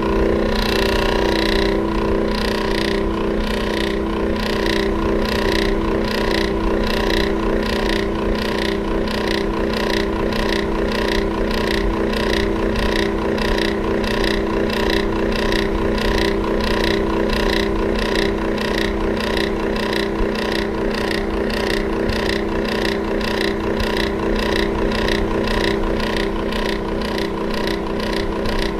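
Electric fan running with a steady motor hum and a regular rhythmic pulsing a few times a second.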